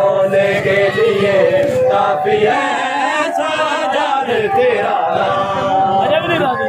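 Crowd of men chanting a noha, a Shia mourning lament, together, many voices overlapping in a wavering sung line.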